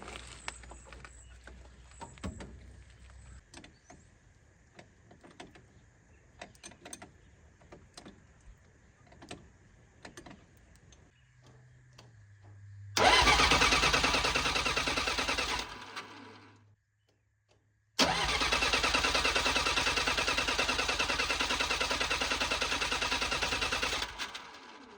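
Bobcat 743B skid steer's diesel engine cranked over by the starter twice, a run of about three seconds and then one of about six, without firing. The owner suspects the glow plugs are not working. A few faint clicks and knocks come before the cranking.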